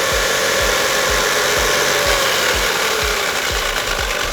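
Traxxas Maxx 2.0 RC truck's electric motor and drivetrain whining at half throttle with its belted tires spinning freely in the air, the pitch easing down a little after about two seconds. A steady low thump about three times a second runs underneath.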